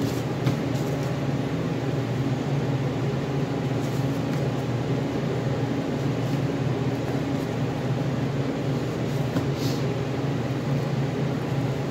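Steady hum of an electric fan running throughout. A few faint scrapes and ticks of a knife against a plastic cutting board are heard as fat is trimmed off a beef roast.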